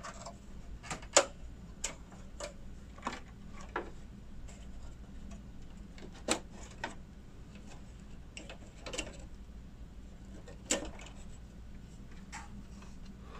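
Irregular plastic and metal clicks and knocks as the blue retention latches of a Dell workstation's expansion slots are released and an old graphics card is unseated and lifted from its PCIe slot. The sharpest clicks come about a second in, around six seconds in and near eleven seconds.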